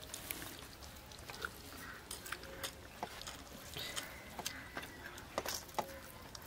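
Eating by hand: fingers mixing rice and duck curry on a steel plate, then biting and chewing a piece of duck meat. The sound is a scatter of small clicks and wet smacks.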